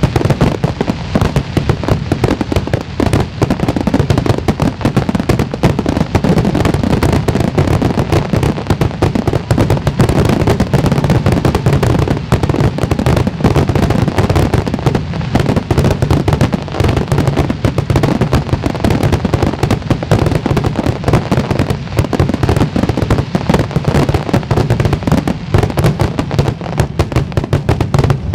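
Aerial fireworks shells bursting in a dense, unbroken barrage, many loud bangs running together with no pause: the rapid-fire finale of a fireworks display.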